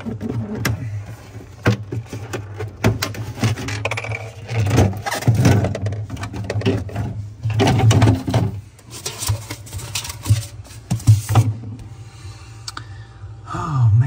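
Clicks, knocks and scraping of a plastic freezer evaporator cover panel being worked loose and pulled out, with a steady low hum underneath.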